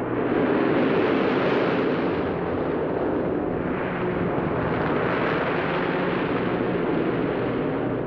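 Heavy storm surf breaking against a rocky shore: a dense roar of crashing waves that surges twice, about a second in and again about five seconds in.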